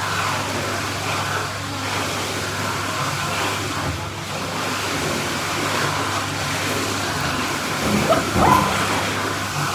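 Water sloshing in an indoor swimming pool over a steady low hum, with louder splashing about eight seconds in.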